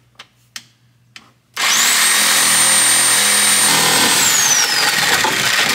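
Reciprocating saw starting up about a second and a half in and cutting through a wooden 2x4. Its motor whine rises at the start, holds steady, then drops in pitch near the end as the saw slows.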